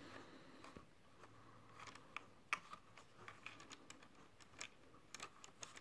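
Faint, irregular clicks and taps of small plastic parts being handled as a driveshaft is worked onto the front differential of a 1/16 plastic RC truck.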